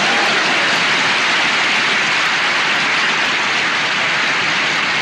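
Studio audience applauding steadily, a dense even clatter of many hands.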